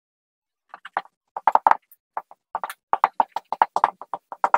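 Dry-erase marker writing on a whiteboard: a quick series of short, squeaky strokes, starting under a second in as the letters are written.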